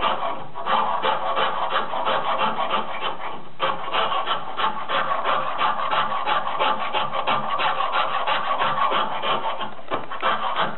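Lie-Nielsen float rasping across a maple chamfer in quick back-and-forth strokes, several a second, with a brief pause about three and a half seconds in. The chamfer is being flattened down to its layout lines.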